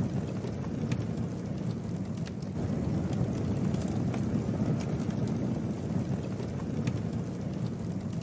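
Campfire burning: a steady low rush of flames with scattered sharp crackles and pops.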